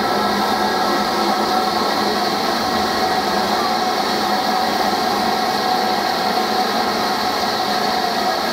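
A standing steam locomotive hissing steam steadily, with faint steady tones running through the hiss.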